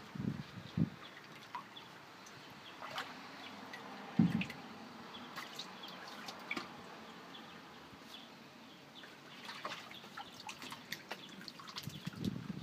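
A mink swimming in a shallow pool of water: small splashes and drips, with a few dull bumps, the strongest about four seconds in.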